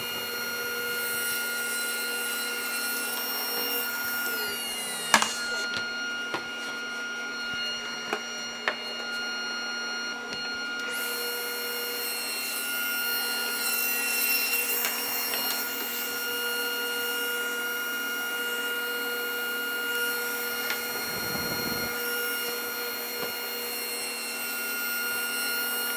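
Table saw running steadily with a constant motor whine while white melamine sheets are fed through it and cut, with a few sharp knocks along the way.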